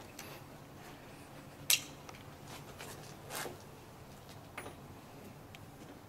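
Small metal clicks as the rebound adjuster knob is lifted off the top of a suspension fork and handled: one sharp click about two seconds in, a softer knock a little later and a faint tick.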